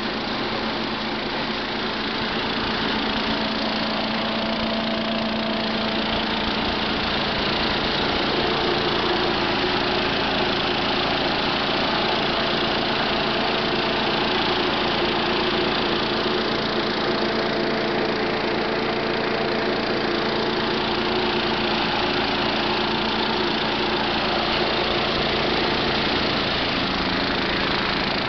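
Farm machinery engine running steadily at a constant speed, its even hum overlaid with a continuous noisy rush.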